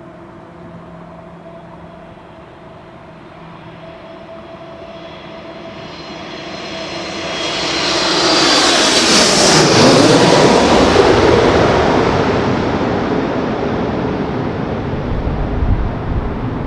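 Boeing 747-8's four GEnx jet engines on final approach, passing low overhead. The jet noise swells for several seconds, peaks a little past halfway with its pitch dropping as the aircraft goes over, then fades to a low rumble.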